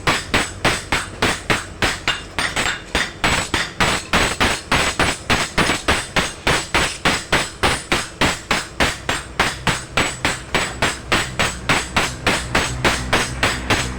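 Hammer striking steel on an anvil in a steady rhythm, about three blows a second, while a punyal (dagger) blade is forged.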